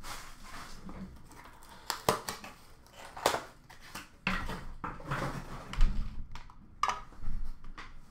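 Hands opening a cardboard trading-card box and handling its packaging: paper and cardboard rustling and crinkling, broken by several sharp knocks and taps, the loudest a little before the end.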